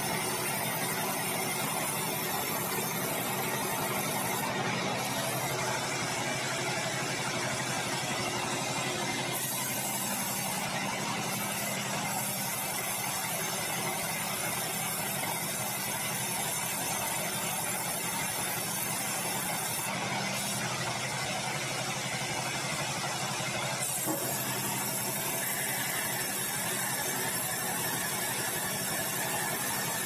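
Band sawmill running and sawing a log of bengkirai, a dense tropical hardwood, fed on the carriage: a steady mechanical noise that changes slightly in its upper part now and then.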